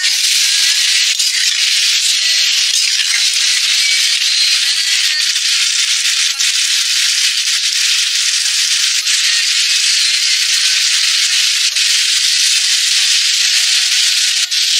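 A braising pot of pork ribs, corn, green beans, pumpkin and potato sizzling steadily in its sauce, a continuous hiss with scattered small pops.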